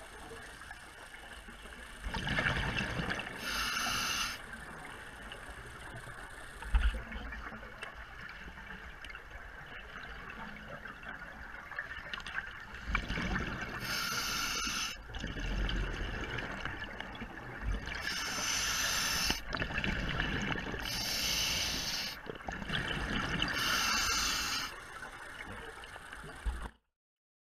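A scuba diver breathing through a regulator: a hissing breath every two to three seconds, with bubbling, gurgling exhalations between. The sound cuts off suddenly near the end.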